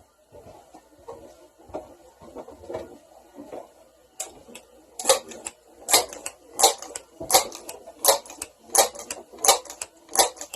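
Crosman 1322 multi-pump air pistol being pumped up: after a few seconds of light handling clicks, the pump lever is worked in a steady rhythm of about eight sharp strokes, roughly one every 0.7 seconds.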